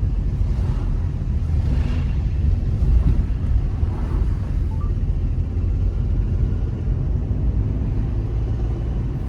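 Steady low rumble of a moving road vehicle: engine and road noise heard while riding along.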